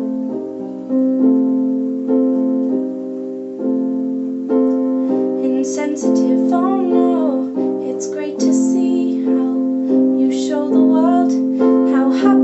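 Slow piano song: held piano chords changing about once a second, with a woman singing over them from about six seconds in.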